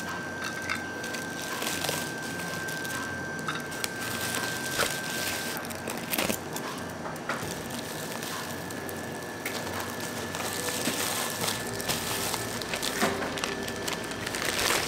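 Foil insulated bag and plastic bag crinkling and rustling as they are handled and folded, with scattered light knocks and clicks as aluminium cans and a cake box are set in.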